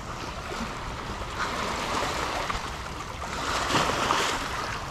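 Small waves lapping and washing over rocks at the water's edge, swelling twice: about a second and a half in, and again past three seconds.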